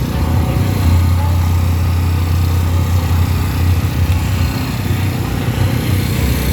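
Steady low rumble of a busy outdoor event, with a faint wash of background noise above it.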